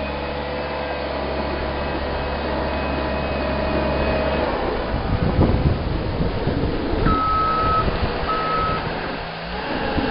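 Caterpillar 257B2 skid-steer loader's diesel engine running steadily, then changing note about four and a half seconds in amid a few knocks and clunks. Two beeps of its backup alarm follow, a little over a second apart.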